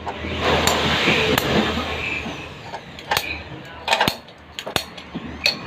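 A noisy stretch, then several sharp knocks or taps spaced irregularly through the second half.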